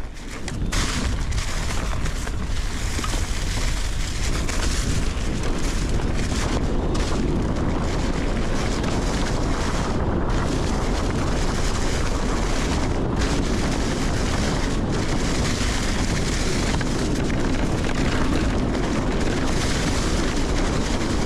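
Steady wind buffeting on the microphone mixed with the rumble and rattle of a Nukeproof Giga 290 mountain bike descending a trail at speed.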